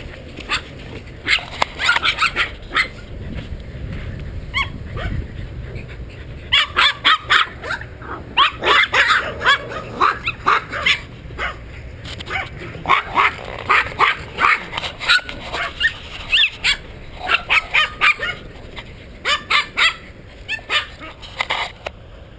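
Several golden retriever puppies yipping and barking in quick clusters of short, high-pitched sounds.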